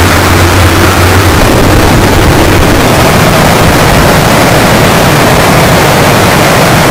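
Loud, harsh static noise across the whole range, a digital glitch-and-distortion effect. A low hum under it fades out about a second in.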